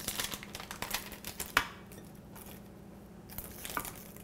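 Clumps of popcorn in a hardened candy coating handled by hand on parchment paper in a metal baking pan: crisp crackling and rustling, densest in the first second and a half, then quieter, with a few more crackles near the end.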